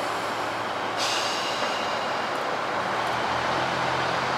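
KiHa 85 series diesel railcar with Cummins engines, running steadily as it creeps slowly along the platform. About a second in, a steady high hiss starts suddenly and continues.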